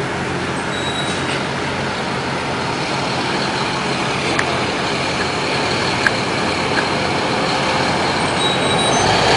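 Vehicle road noise: a steady rushing that slowly grows louder toward the end, with a few faint ticks.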